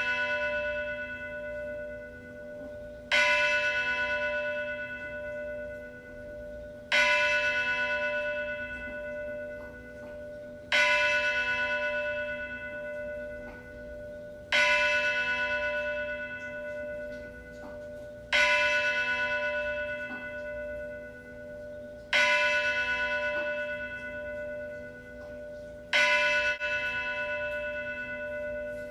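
A single church bell tolling slowly, struck about every four seconds at the same pitch, seven strokes in all. Each stroke rings on and dies away with a slow wavering hum before the next.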